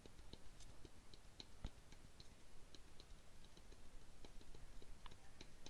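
Faint, irregular clicking from a new serpentine belt tensioner pulley being rocked and turned by hand. Its bearing is loose, with play where there should be none.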